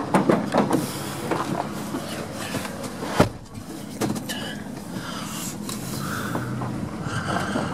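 Footsteps crunching on a gravel road, then a pickup truck's door shutting with a sharp bang about three seconds in, followed by the truck running from inside the cab.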